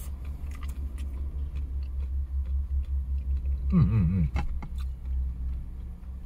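A man chewing a mouthful of simmered mudskipper, with small clicks of chopsticks and chewing over a steady low rumble. About four seconds in he gives a short wavering hummed "mm" while chewing.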